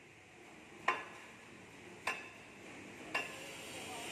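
Hammer blows on steel: three strikes about a second apart, each ringing briefly.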